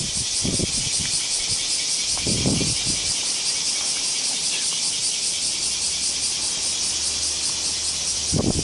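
Cicadas buzzing in a steady, high-pitched chorus with a fine even pulse. A few soft low thumps come in between.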